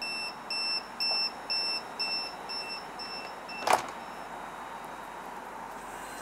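Door-closing warning on a Stadler diesel light rail car: a high electronic beep repeating about twice a second, eight times, then a single sharp knock about three and a half seconds in.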